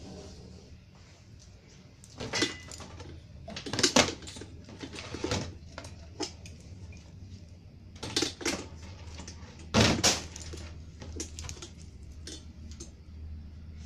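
A bundle of computer power supply wires with plastic connectors being handled and knocked against the open power supply and the table: irregular clatters and rustles, loudest about 4 and 10 seconds in, over a steady low hum.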